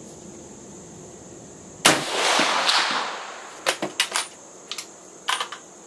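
A single shot from a 6.5×55mm Swedish M38 Mauser rifle about two seconds in, its report echoing for about a second. Then come about five short metallic clicks as the bolt is worked to eject the spent case and chamber the next round.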